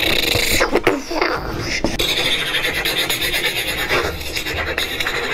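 A boy making vocal sound effects for a toy robot he is playing with, with squealing pitch glides in the first two seconds.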